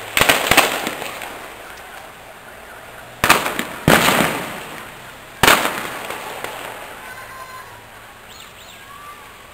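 Several loud bangs in quick succession, then three more over the next few seconds, each echoing for about a second: blasts during an armed raid.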